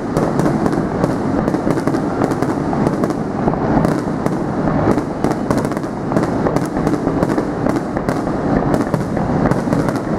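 Aerial firework shells bursting in a rapid barrage, their bangs and crackles overlapping into a continuous loud din with no gaps.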